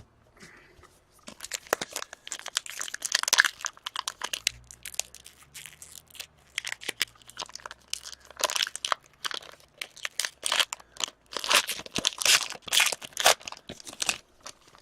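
Crinkly foil wrapper of a hockey card pack being torn open and crumpled, a dense run of irregular crackles and rustles.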